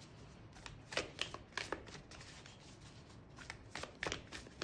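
A deck of oracle cards being shuffled by hand: a run of short, irregular soft card slaps and rustles.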